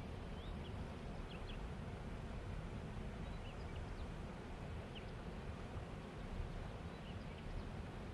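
Steady outdoor riverside ambience with a low rumble of wind and water, and short faint bird chirps scattered throughout.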